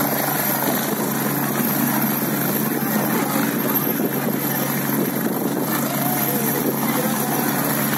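Helicopter landing: its rotor and engines running steadily as it settles onto the ground, with faint crowd voices underneath.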